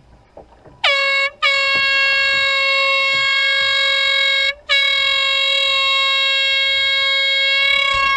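Air horn blowing: a short blast about a second in, then a long steady blast of about three seconds, then another long blast held on.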